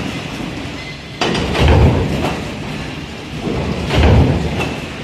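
Stamping presses running, a heavy low thump with each press stroke, two of them about two and a half seconds apart, over steady machine noise.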